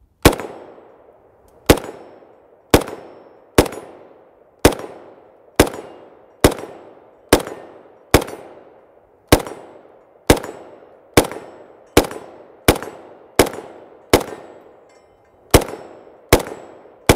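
FN FNC rifle in 5.56×45 mm NATO fired semi-automatically: about nineteen single shots at an unhurried pace of roughly one a second, each trailing off in a short echo. Every round feeds and cycles from a standard USGI aluminium magazine without a malfunction.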